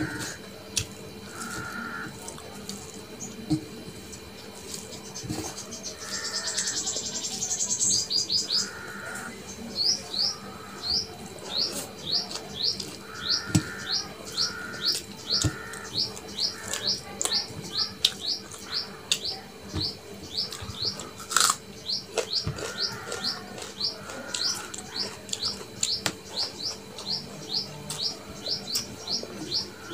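A small bird chirping in short, quick repeated notes, about two a second, starting about a third of the way in, with occasional soft clicks of fingers mixing rice on a steel plate.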